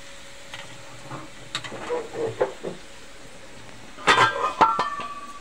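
Hot oil of an onion and whole-red-chilli tadka faintly sizzling in a steel wok after the stove is turned off. About four seconds in, a metal pot lid clatters as it is lifted and the tempering is poured onto the kadhi, setting off a loud burst of sizzling.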